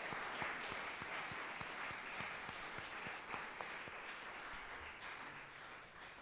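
Audience applauding, dense clapping that slowly thins and dies away near the end.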